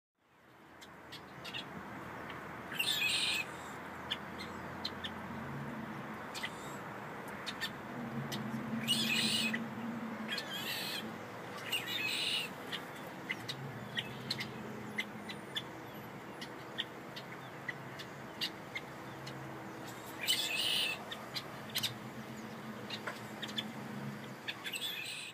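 Outdoor ambience: a steady hiss with short bird calls every few seconds.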